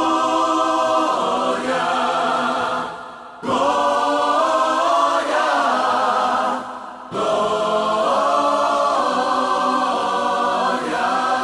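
Gospel choir singing long, held chords in the song's intro, in three phrases with brief breaks about three and seven seconds in.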